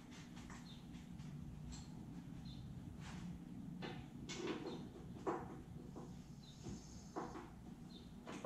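Scattered light knocks and clicks of parts and tools being handled on a car's bare front end, over a steady low hum, with short bird chirps now and then.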